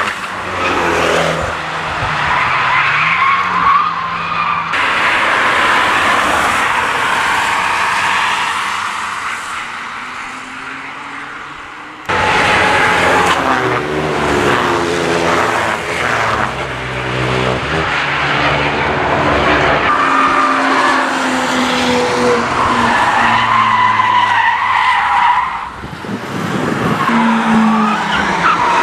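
Road cars driven hard on a race track: engines revving up and down through corners, with tyres squealing and skidding as the cars slide. The sound changes abruptly a few times where separate clips are joined.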